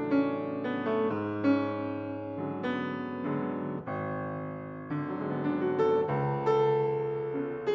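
Yamaha grand piano played by the left hand alone in a classical piece: notes and chords struck every half second or so, each ringing on over held bass notes.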